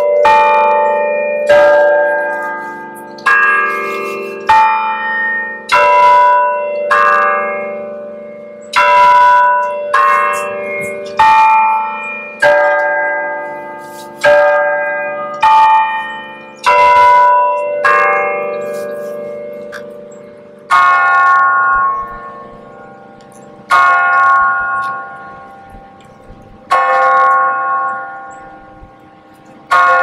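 Tower bells of the Salmon Run Bell Tower's glockenspiel playing a slow tune, a different note struck about every second and a half and left ringing. In the last third the strokes slow to about one every three seconds.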